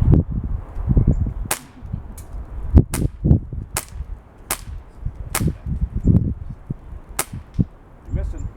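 BB pistol being fired repeatedly, about seven sharp cracks at an uneven pace of roughly one a second. Low rumbling thuds sound between the shots.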